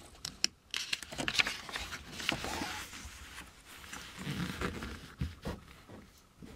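Paper rustling and crinkling as a large folded instruction sheet is turned over and smoothed flat by hand, in irregular scrapes and flaps with a few sharp ticks.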